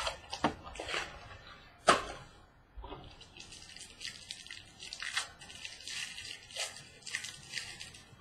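Trading cards handled by hand: a few sharp taps and clicks as cards are knocked and flipped, the loudest about two seconds in, then steady rustling with light ticking from about three seconds on as the cards slide against each other.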